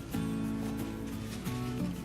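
Background music: sustained chords that change about a second and a half in, over a light, steady beat.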